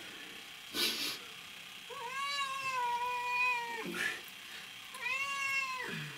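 A wet cat meowing in long, drawn-out wails while it is held and dried in a towel after a bath: two calls, the first about two seconds long starting about two seconds in, the second shorter near the end, each dropping in pitch as it ends. A short burst of noise comes about a second in.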